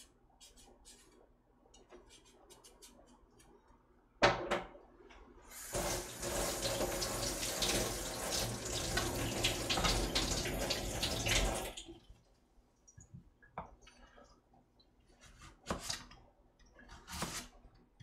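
Kitchen tap running into the sink for about six seconds, with one sharp knock shortly before it starts. Near the end come a few sharp knocks as a knife starts on the cutting board.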